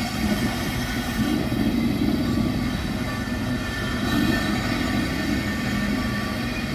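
Class 90 electric locomotive moving slowly, a steady running sound with several held whining tones over it.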